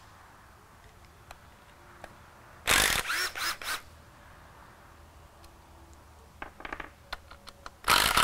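Pistol-grip power tool running in two short bursts, about three seconds in and again near the end, backing out the bolts of the input shaft collar on an NV4500 five-speed transmission. A few light metallic clicks come between the bursts.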